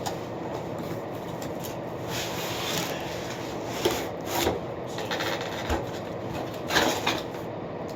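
Rustling and handling of a laptop's cardboard box and packaging, with a few short scrapes and knocks around the middle and near the end, over a steady background hiss.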